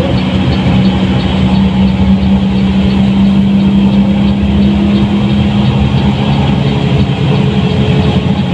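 Diesel engine of a front-engined Mercedes-Benz 1623 bus running at a steady speed, a constant drone that holds one pitch throughout.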